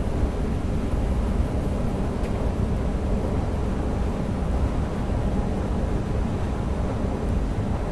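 Steady low rumble of an NS DDZ double-deck electric train running along the line, heard from inside the driver's cab.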